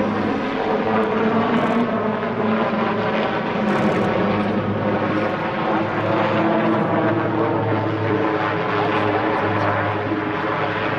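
Eurocopter AS532UL Cougar (Super Puma) twin-turbine helicopter in flight: its main rotor and turbines make a steady, even drone made of many layered tones.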